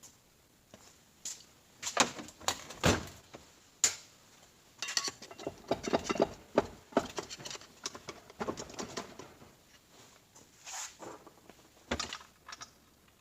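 Irregular metal clanks, knocks and scraping as a pry bar works on a 46RE automatic transmission during teardown. This is the stage of prying out the front pump. The loudest knocks come about two and three seconds in, and a single sharp knock comes near the end.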